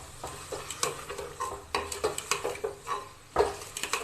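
A spoon scraping and knocking against the metal pot of a pressure cooker as chopped bottle gourd is stirred into fried masala, over a frying sizzle. Irregular strokes, with one louder knock about three and a half seconds in.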